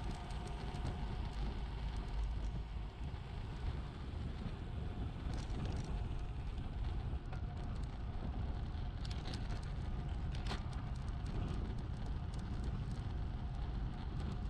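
Road bicycle rolling along an asphalt road, heard through a bike-mounted camera: steady wind and tyre rumble on the microphone, with a few sharp clicks about halfway through and again after about nine seconds.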